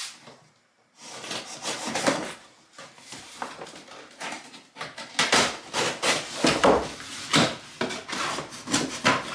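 Cardboard shipping box being torn and pulled open by hand, with irregular bouts of scraping, ripping and rubbing that start about a second in and grow busier in the second half.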